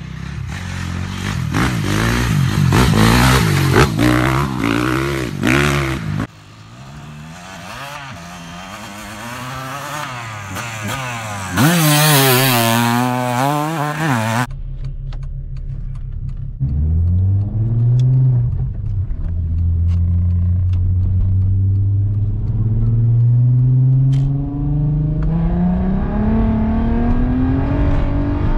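Dirt bike engine revving hard, its pitch rising and falling, in two separate clips. About halfway through it gives way to a Volkswagen car's engine heard from inside the cabin, pulling steadily and rising in pitch as the car accelerates.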